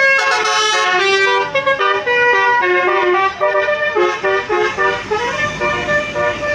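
A bus's 'basuri' telolet musical horn playing a quick tune of short notes, several tones sounding together. From about four seconds in, a rising noise lies under the notes.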